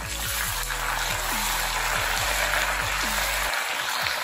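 Curry leaves and halved green chillies sizzling and spattering loudly in hot coconut oil, stirred with a ladle. Background music plays underneath.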